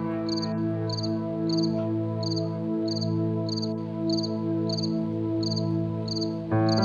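Crickets chirping in an even rhythm, a little under two short pulsed chirps a second, over soft held chords of background music; the chords swell louder near the end.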